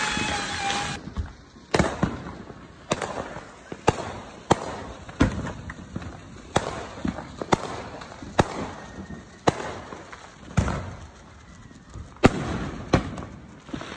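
A ground fountain firework hissing, cut off suddenly about a second in, then a long run of sharp fireworks bangs going off one after another, roughly one or two a second.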